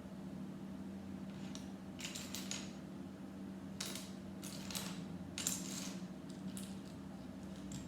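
Small plastic Lego pieces clicking and clattering as they are picked out and handled, a scatter of light clicks in small clusters over a steady low hum.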